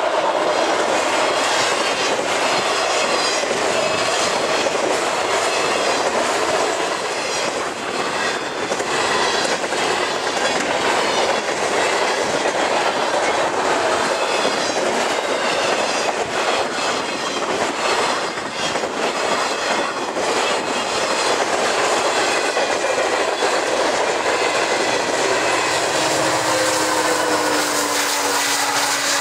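A freight train of autorack cars rolls past close by, its wheels clacking over rail joints amid steady rolling rumble and faint high flange squeals. Near the end a mid-train Union Pacific locomotive comes by, adding a steady engine hum.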